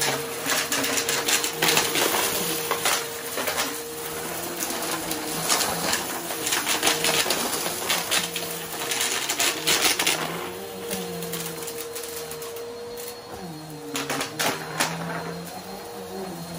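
Bissell upright vacuum with a turbobrush head running steadily while it sucks up small colourful plastic bits and crumbly debris from a carpet, the pieces clicking and rattling up through the nozzle in dense flurries, heaviest over the first ten seconds and again about fourteen seconds in.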